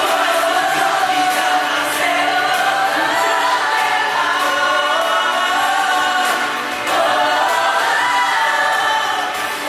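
Show choir of men and women singing in harmony through handheld microphones, amplified over a PA. There is a brief lull a little before seven seconds in.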